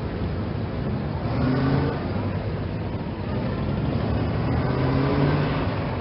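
Road traffic: a continuous rumble of vehicle engines and tyres, with engine notes swelling as vehicles pass, once about a second and a half in and again near the end.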